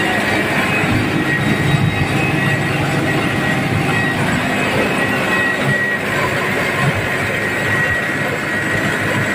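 Belt-driven rice mill running steadily while milling palay into rice: a loud, continuous rumble and clatter with a thin steady whine over it.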